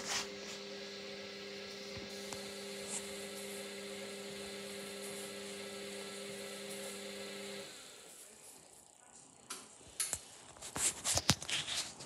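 Hoover Dynamic Next front-loading washing machine tumbling its drum on a 90-degree cotton boil wash, a steady motor hum that stops about three-quarters of the way through as the drum pauses. Several sharp knocks follow near the end.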